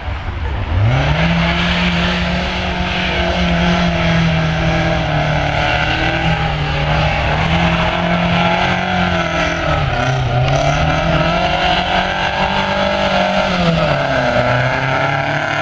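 Rally car engine revving hard as the car slides round a loose gravel course. The note climbs about a second in and stays high, dipping briefly twice, near the middle and again near the end.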